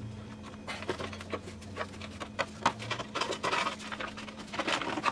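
Sheet-metal exhaust manifold heat shield on a Chevrolet Cruze 1.8L being worked loose and lifted off by hand: a run of light scrapes, taps and clicks as the shield rubs and knocks against the manifold.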